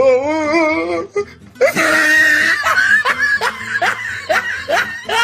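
Laughter over background music: wavering laughs at first, then a run of short rising laughs, about three a second, in the second half.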